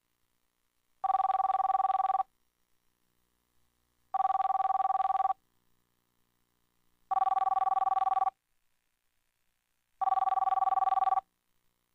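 Telephone ringing four times, each ring a fluttering two-tone trill of about a second, repeating about every three seconds with silence between.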